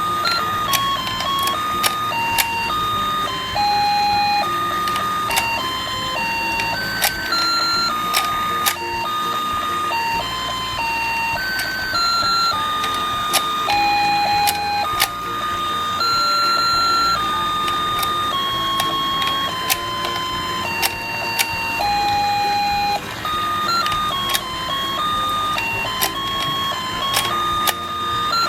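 Battery-operated toy fishing game running: a simple electronic beeping tune plays over a steady mechanical whir, with frequent sharp plastic clicks.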